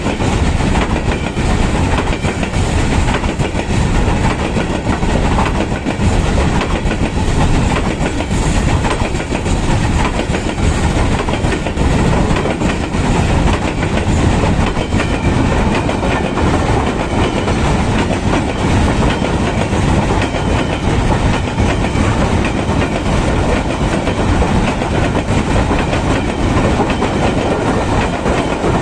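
Freight wagons of a long goods train rolling past, wheels running on the rails in a steady, loud rumble.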